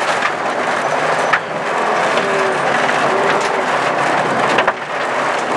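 Audi 80 quattro rally car at speed on a gravel road, heard from inside the cabin: the engine running under load beneath a steady roar of tyres and gravel, with a few sharp knocks of stones hitting the car.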